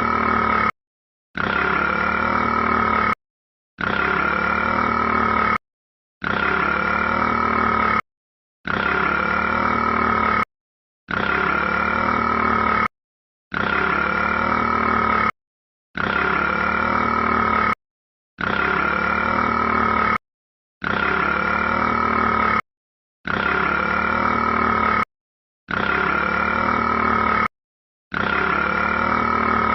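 A long, loud burp, the "burping rat" sound, looped: the same two-second burp repeats about every two and a half seconds with a brief dead-silent gap between, about a dozen times.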